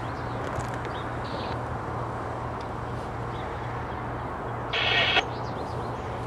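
Low, steady rumble of an approaching freight train's diesel locomotives, still out of sight. About five seconds in comes a brief high-pitched squeal.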